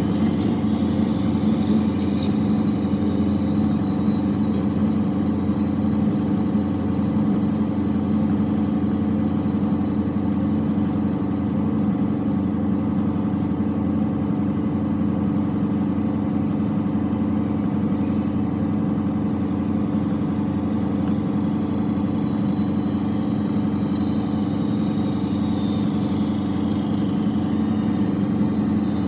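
A vehicle engine running steadily at an even pitch and speed.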